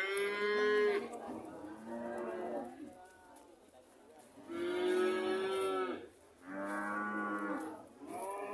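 Cattle mooing: several drawn-out moos one after another, with a pause of about two seconds midway.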